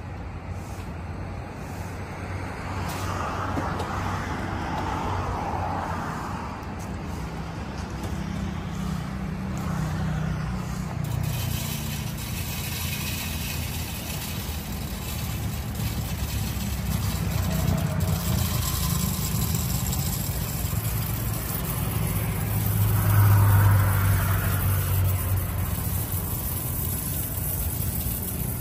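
Road traffic: vehicles passing by over a steady low rumble, with two louder passes that swell and fade, one a few seconds in and the loudest near the end.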